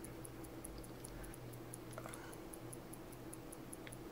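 Quiet bench room tone: a low steady hum with a faint, regular high ticking about five or six times a second, and a couple of faint small clicks about two seconds in and near the end.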